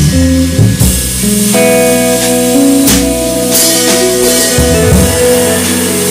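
Trio of archtop hollow-body electric guitar, upright double bass and drum kit playing live, the guitar carrying the melody over walking bass notes and light drumming with a few sharp cymbal or drum strokes.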